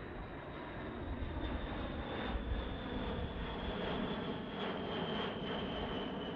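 B-52 bomber's jet engines running: a steady rush with a thin high whine that slowly falls in pitch, growing louder about a second in.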